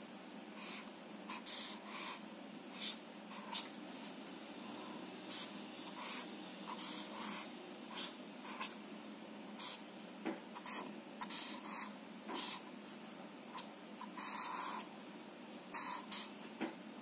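Marker pen drawing on paper: a run of short, irregular scratchy strokes as lines and boxes are drawn, with some strokes longer than others.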